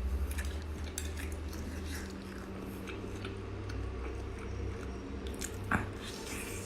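A person chewing and biting meat close to the microphone, with scattered small mouth clicks over a steady low hum.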